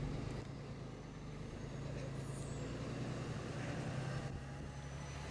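Bus engine running steadily at low revs, a low hum.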